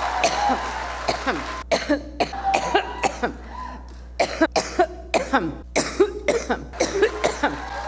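A woman's coughing fit: a long run of short coughs, about three a second, beginning about a second and a half in and easing briefly near the middle, over a steady low hum.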